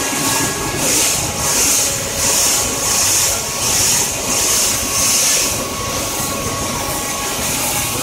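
Blueberry colour sorting machine running: a steady mechanical rattle and hum, with a high hiss that swells and fades about every three-quarters of a second and dies away after about five seconds.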